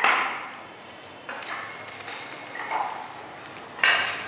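Spiked shoes stepping on a wet epoxy floor coating: three sudden knocks a second or more apart, each fading out.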